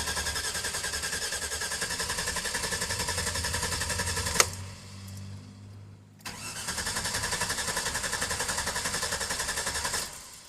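2002 GMC Sierra engine cranking on the starter in two tries, each an even, fast rhythmic churning that stops without the engine firing: it cranks but won't start, though the owner smells fuel. A sharp click about four seconds in ends the first try, and the second starts about six seconds in.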